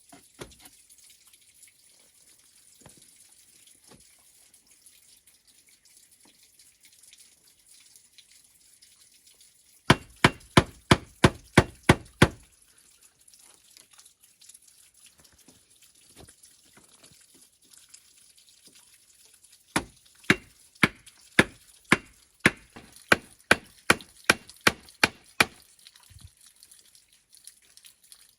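A tool striking bamboo in two runs of quick, sharp blows: about eight at roughly three a second, then after a pause a longer run of about fifteen slightly slower ones.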